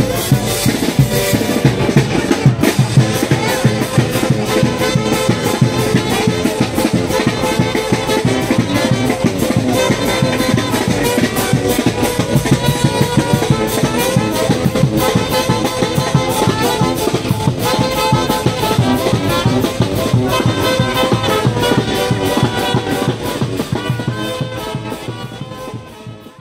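Lively brass band music with drums and a steady beat, fading out near the end.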